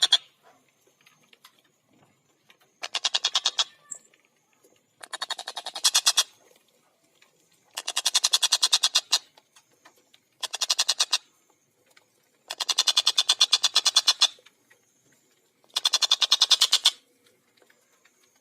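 Stork-billed kingfisher (tengkek buto) calling: six quick cackling bouts, each a fast, even run of sharp high notes lasting one to two seconds, separated by short pauses.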